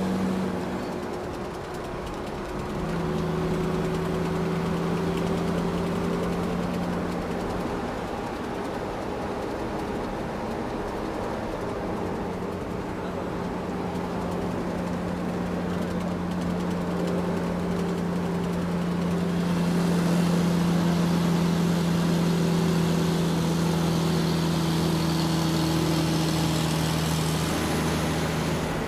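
Steady engine drone with a low hum that shifts in pitch a few times, the running sound for a toy boat moving on the water.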